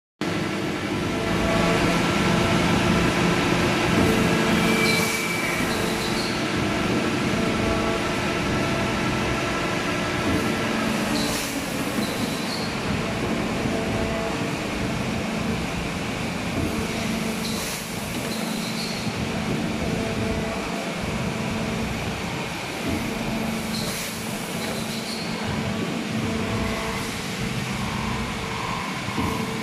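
Plastic injection moulding machine running through its cycle: a steady hydraulic hum with a short clack and hiss that repeats about every six and a half seconds.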